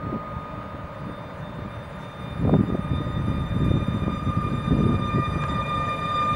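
Newag Griffin EU160 electric locomotive pulling away and drawing past: a steady high electrical whine with further higher tones joining it, over a low rumble of wheels on track that grows louder about two and a half seconds in.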